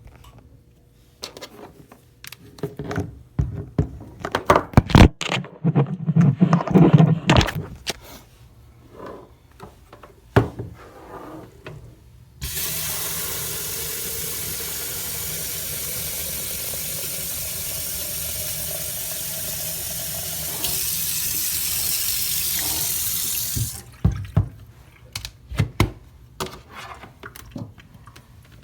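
Water running from a tap into the small plastic Proctor Silex electric kettle: a steady hiss for about eleven seconds that gets louder a few seconds before it stops. Before and after the water come clattering knocks and clicks of the plastic kettle and its lid being handled, loudest just before the filling.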